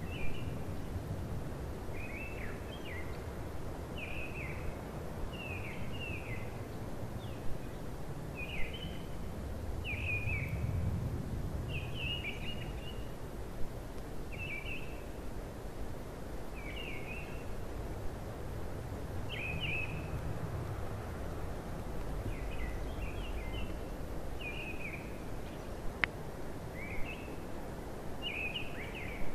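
A songbird calling over and over, a short falling chirp about once a second, over a steady low rumble that swells twice. A few sharp clicks break in briefly.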